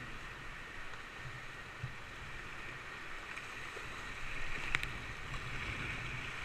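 Rushing whitewater river around a kayak, with paddle strokes splashing; the water grows louder in the second half as the boat runs into rougher water. A single sharp knock about two thirds of the way through.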